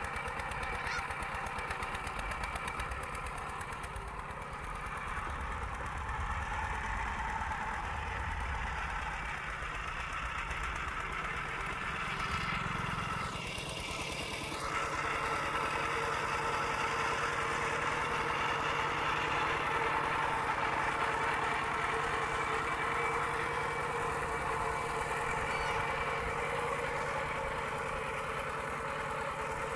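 A Kubota RT120 walking tractor's single-cylinder diesel engine running steadily under load with a fast, even knocking beat as the tractor pulls through wet paddy mud. It gets a little louder about halfway through.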